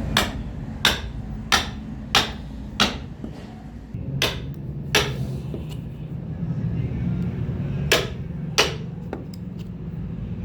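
Hammer blows, about one every two-thirds of a second, in runs of five, two and three strokes with pauses between, over a steady low hum.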